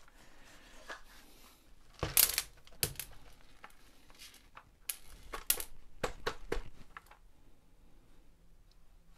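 The hard plastic housing of a Makita DX01 dust extractor is handled and turned over on a metal tabletop, with scattered clicks and small clinks as the loosened screws come out. The loudest knock comes about two seconds in.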